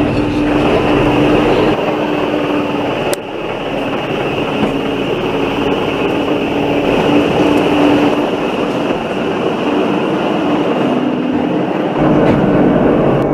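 Pilatus Railway electric rack railcar running on the steep cogwheel line: a steady running noise with a pitched whine from the drive that comes and goes, and a sharp click about three seconds in.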